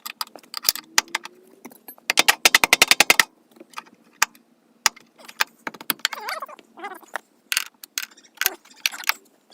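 Tool work on the truck: scattered sharp metal clicks and knocks, with a fast ratcheting run of about a dozen clicks in a second about two seconds in. A cat meows a few times in the second half.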